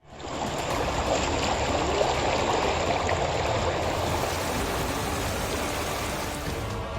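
Floodwater rushing and flowing steadily, fading in quickly at the start.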